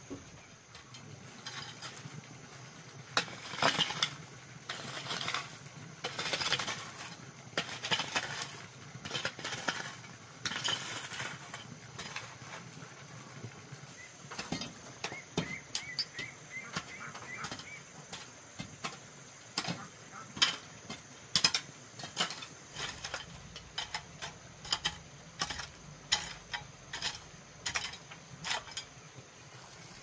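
Irregular knocks, clicks and scrapes of hand work with tools. They come in bunched, scraping clusters in the first half and as sharp separate clicks, about one or two a second, in the second half.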